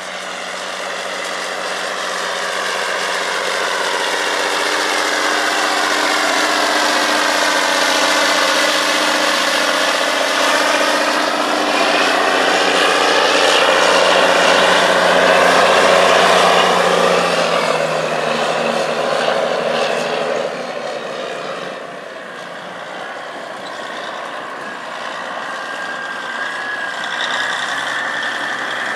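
Steiger PTA-325 Panther III four-wheel-drive tractor's 325 hp diesel engine running steadily under load as it pulls a strip-till bar through the field. It grows louder as the tractor passes close by about halfway through, then fades as it moves away.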